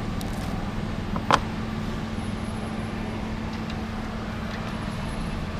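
Wire cutters snipping once through electrical wiring, a sharp click about a second in, over a steady low hum.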